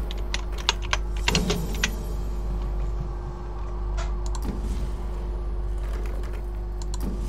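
Computer keyboard typing: a quick run of about eight keystrokes in the first two seconds, then a few scattered clicks, over a steady low hum.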